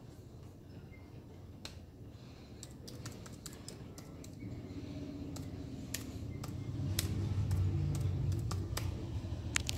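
Typing on a MacBook Air keyboard: scattered, uneven key clicks. A low rumble swells underneath from about halfway through.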